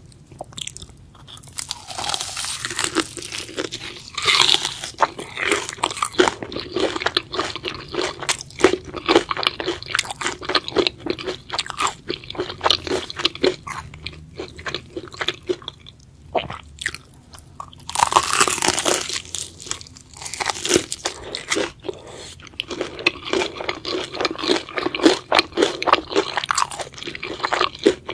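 Close-up chewing of crunchy food: a dense run of crisp crunches, with louder stretches of biting about two seconds in and again around eighteen seconds, and a short lull in between.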